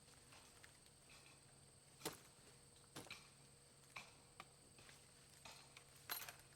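Faint, sharp knocks and snaps from small-tree logging work, spaced roughly a second apart. The loudest come about two seconds in and near the end.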